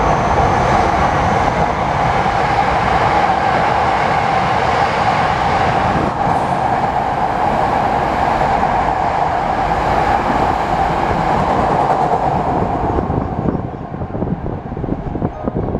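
A Hankyu electric train passes through the station at speed without stopping, a loud, steady rush of wheels on rail. About thirteen seconds in it fades quickly, leaving a few wheel clacks as the last cars go by.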